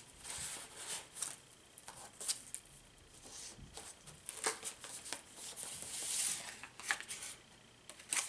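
Paper rustling and handling as pages and paper pieces of a handmade junk journal are turned and moved, with scattered soft clicks and brief crinkling swells.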